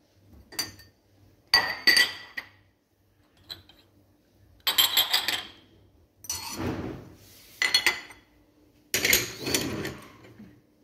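Cups and dishes clinking against each other and the dishwasher rack as they are lifted out, in a series of separate short bursts.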